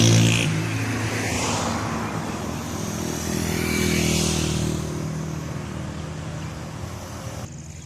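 A motor vehicle passing close by, its engine note falling away just after the start. About four seconds in comes the rising and fading rush of another passing vehicle, over a steady low engine hum.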